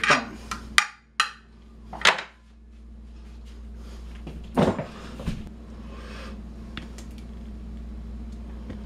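A few scattered knocks and clatters of a metal carving knife and fork being set down on a wooden cutting board beside a glass baking dish, with a faint steady hum underneath.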